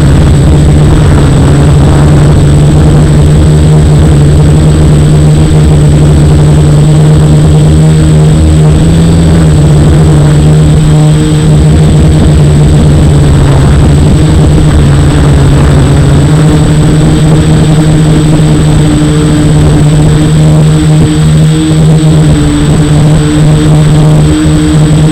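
F450 quadcopter's brushless motors and propellers running hard in flight: a loud, steady hum with a thin high whine above it, the pitch shifting slightly as the throttle changes.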